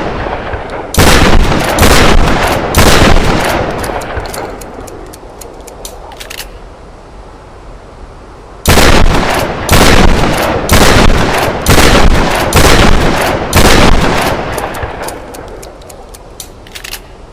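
Trench shotgun firing repeatedly, each loud shot trailing off in a long echo: three shots about a second apart near the start, then after a pause of several seconds a run of six more at the same pace. Faint clicks sound in the gaps between the two runs of shots.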